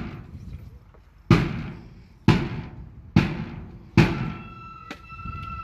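A marching flute band's drums strike four loud single beats about a second apart, each ringing out. Flutes then come in on a held note near the end.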